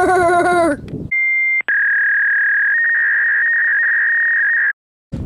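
A high-pitched voice sings for about the first second. Then an electronic sine-wave tone: a short beep, followed by one long steady tone of about three seconds that steps slightly higher in pitch partway through and cuts off suddenly.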